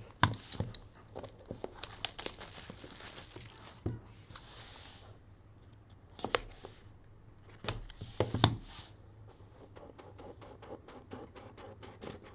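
Plastic shrink wrap being torn and crinkled off a cardboard trading-card box, with several sharp knocks as the box is handled and set down on the table, and a fast run of light ticks near the end.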